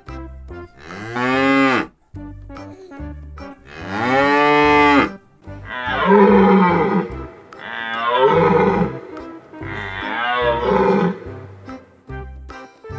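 Cattle mooing: about five long, drawn-out calls, the first two rising and falling in pitch, the later three falling. Background music with a steady beat runs underneath.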